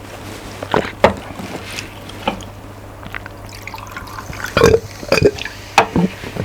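Close-miked wet eating sounds from a mouthful of spicy mixed noodles: short, sharp smacks and slurps, a few about a second in and a louder cluster in the second half, over a steady low electrical hum.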